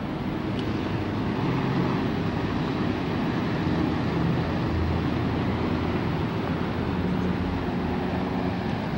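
Steady city background noise: a low rumble of traffic with a faint engine hum.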